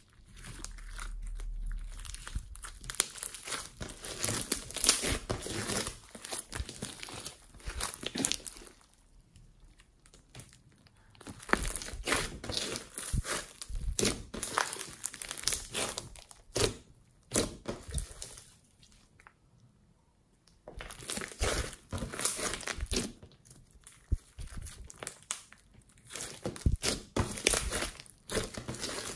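Hands kneading, stretching and squeezing glossy slime mixed with foam beads and sprinkles: sticky crackling and popping in bursts, with two quieter pauses, about a third of the way in and again about two thirds in.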